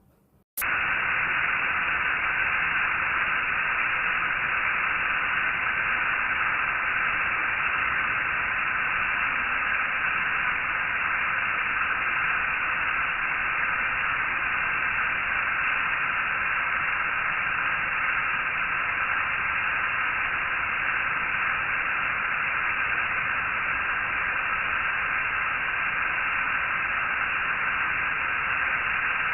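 Steady static hiss, like white noise, that switches on abruptly about half a second in and holds unchanged.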